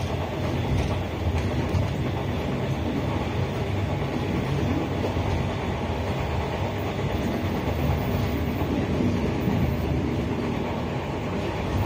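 Passenger train running along the track, heard from inside the carriage: steady running noise of the wheels on the rails.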